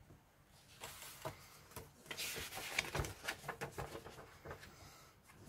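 Paper rustling and crinkling as a decal sheet and its accompanying printed sheet are handled off-camera, in irregular crackles that start about a second in and die away near the end.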